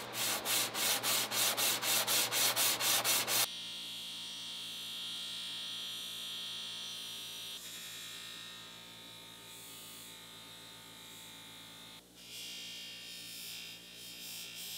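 Rapid back-and-forth hand sanding of a metal combination-square head on sandpaper, about four strokes a second, stopping abruptly. Then a bench buffer runs steadily, its cloth wheel buffing the metal with a steady hiss. Near the end the hiss grows louder as a bar of white polishing compound is pressed against the wheel.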